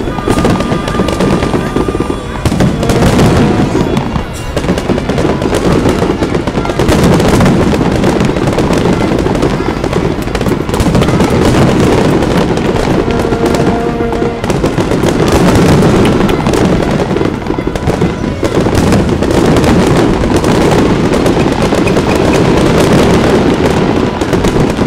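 Aerial fireworks display: loud, continuous shell bursts and crackling, going off in quick succession.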